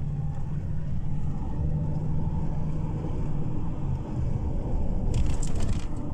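A car driving, heard from inside the cabin: a steady low engine and road rumble. About five seconds in there is a brief rustling clatter lasting under a second.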